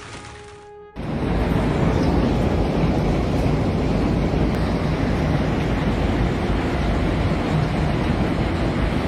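Heavy rain and traffic on a waterlogged road: a steady, loud rushing noise that cuts in abruptly about a second in.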